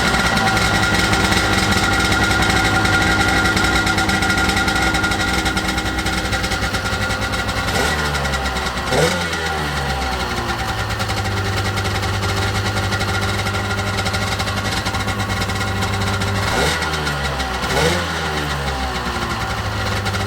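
1995 Sea-Doo GTX two-stroke twin engine running on a garden-hose flush out of the water, idling steadily, with the throttle blipped twice in quick succession about eight seconds in and again about seventeen seconds in. It is a test run to hear whether new exhaust manifold gaskets have cured an exhaust leak.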